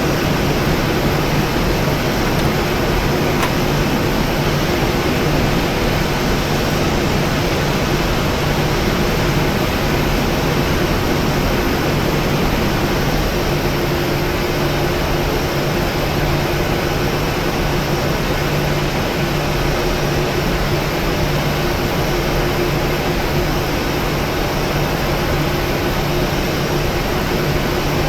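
Steady cabin noise inside a Boeing 737-900: an even rush of air from the cabin ventilation with a low, unchanging hum underneath.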